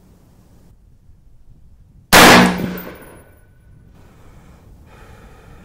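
A single shot from an AR-15-type carbine: one sharp, loud report about two seconds in that dies away over about a second. It is the fifth and last round of a zeroing group.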